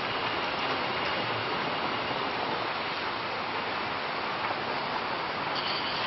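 Steady hiss with no voice in it: background noise of the recording and sound system.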